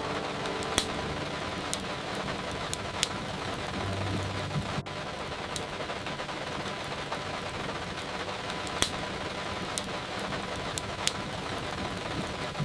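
Steady rain ambience layered with the sharp pops and crackles of a wood fire in a fireplace, a single pop every one to three seconds.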